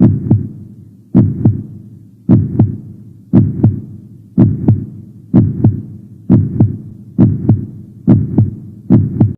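Heartbeat-like double thumps, each pair a low lub-dub, repeating about once a second and gradually quickening. The sound cuts off suddenly at the end.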